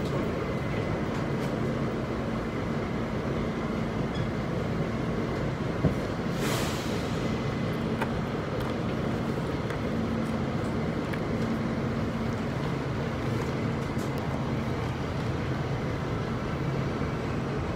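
New York City subway car running, heard from inside the car: a steady rumble with a low hum. About six seconds in there is a sharp click, followed by a short hiss.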